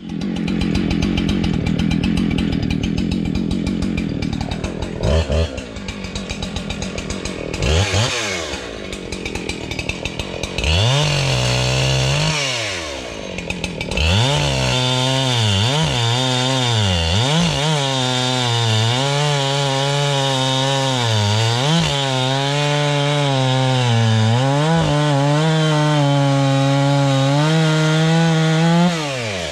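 Husqvarna two-stroke chainsaw running and cutting through logs into firewood rounds. Its engine note dips and recovers again and again as it cuts, then cuts off suddenly near the end.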